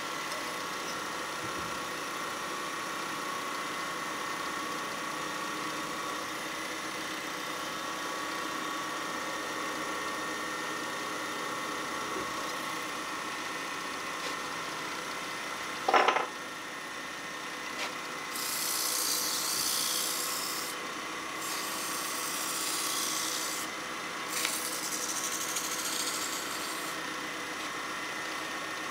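Wood lathe running with a steady hum. About halfway through there is one short, loud knock, then three stretches of hissing as a tool works the spinning pine blank.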